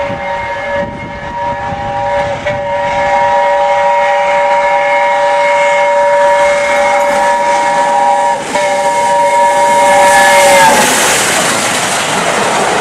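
A train's multi-note horn sounding one long chord, broken twice for a moment and cutting off about eleven seconds in, followed by a loud hiss.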